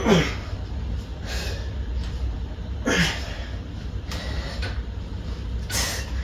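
Cable pulley running as a weight plate is pulled up and lowered on a rack-mounted pulldown, giving a short falling whine twice, at the start and about three seconds in, with short hissy breaths between reps over a steady low hum.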